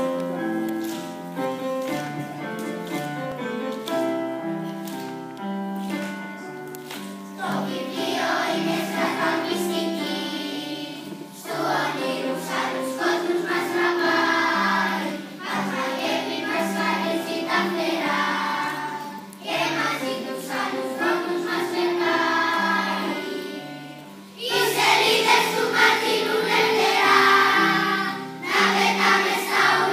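A young children's choir singing with keyboard accompaniment. The keyboard plays alone for about the first seven seconds before the voices come in, and the singing gets louder near the end.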